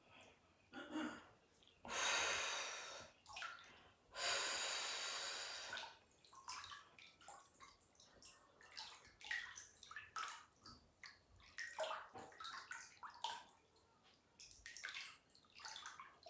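Two long breaths out, each about two seconds, close to the phone, then faint small sloshes and drips of bathwater in the tub.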